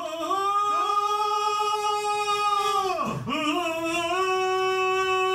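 A voice singing two long held notes, each steady in pitch, with a brief drop between them about three seconds in.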